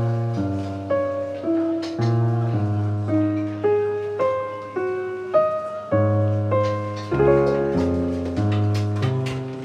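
Background piano music: a steady run of struck melody notes over sustained low bass notes.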